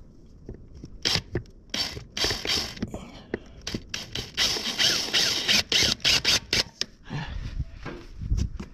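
Drill boring a hole through an ATV's plastic body panel in short, irregular bursts, with clicking and scraping as the bit catches.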